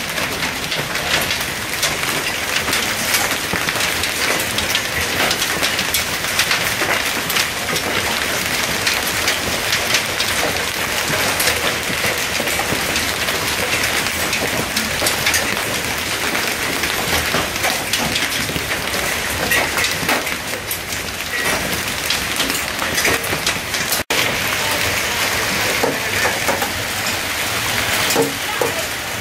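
Hail and rain falling hard: a dense, steady mass of small clicks as hailstones strike the ground, metal patio furniture and leaves. It cuts out for an instant once, about 24 seconds in.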